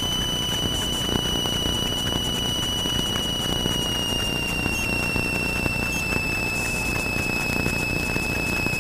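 Cessna 172's stall warning horn sounding a steady high whistle whose pitch slides slowly down, over the steady drone of engine and wind in the cabin. In the landing flare this means the airspeed is near the stall just before touchdown.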